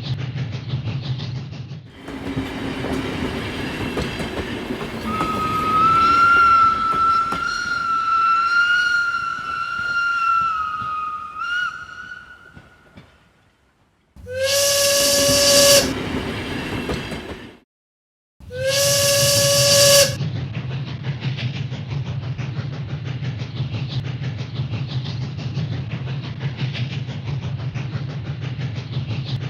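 Two short, loud whistle blasts about four seconds apart, each one held note, the second followed by a steady low mechanical hum. Before them a long, wavering high whistle fades away.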